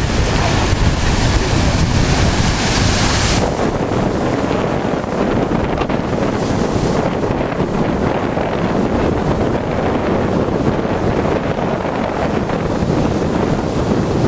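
Storm waves crashing and surging against a beach groyne, a loud hissing rush for the first three seconds or so that then eases, with a shorter rush about six seconds in. Strong wind rumbles on the microphone underneath.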